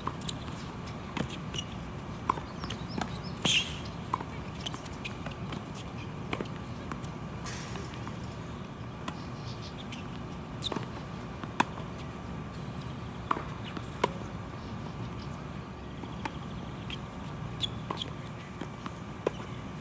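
Tennis balls being struck and bouncing: about a dozen sharp, separate knocks spread irregularly, over a steady background hum. The loudest is a short, brighter burst about three and a half seconds in.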